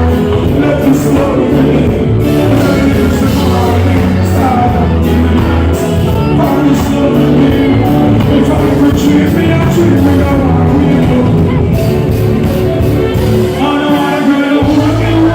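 Live dancehall music played loud through a concert sound system, a vocalist singing over a strong bass line; the bass drops out for a moment near the end, then comes back.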